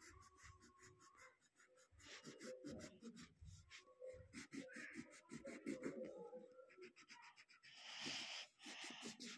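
Green coloured pencil scribbling on paper in quick, faint back-and-forth strokes, growing louder and scratchier near the end.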